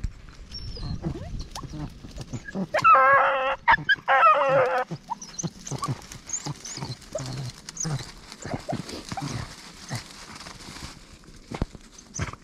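Beagle baying twice, two wavering calls of about a second each, about three seconds in. Around them, footsteps crunching through crusty snow and twigs snapping in thick brush.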